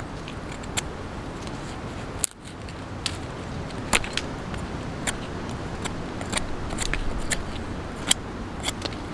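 Fixed-blade knife shaving and notching a green stick into a tent stake: about a dozen sharp, irregular scrapes and snicks as the blade bites into the wood.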